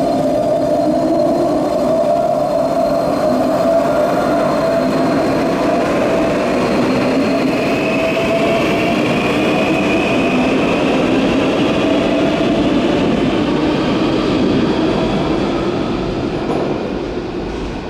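Electric train running through a station, its traction motors whining in several pitched tones, one of them climbing steadily for several seconds over the rumble of the wheels. The sound fades over the last couple of seconds.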